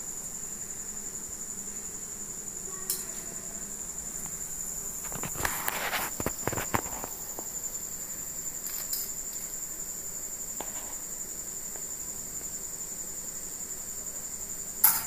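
A steel slotted spoon clinks and scrapes against the frying pan and a wire draining basket as fried urad dal bondas are lifted out of the oil. The taps and rattles cluster about five to seven seconds in, with single clicks now and then. A steady high-pitched whine runs underneath throughout.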